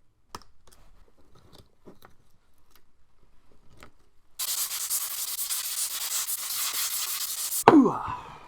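Faint clicks and taps of small laptop parts being handled, then, about four seconds in, a can of compressed air (Dust-Off) blows dust out of a MacBook Pro's insides in one steady hiss of about three seconds that cuts off with a sudden knock.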